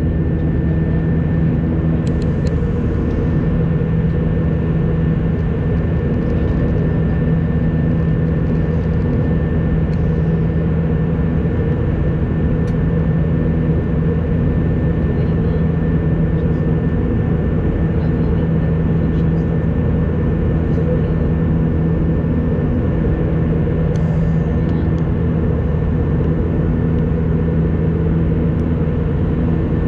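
Airliner cabin noise in cruise: the steady drone of the turbofan engines and rushing airflow, with a low hum and a thin high whine held at one pitch.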